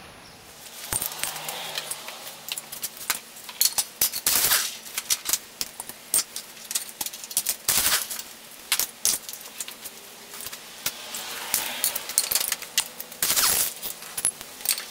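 Air impact wrench rattling in short bursts on the bolts of a riding mower's transaxle, two of them louder, about four and thirteen seconds in, amid irregular metallic clinks and clanks of tools and parts.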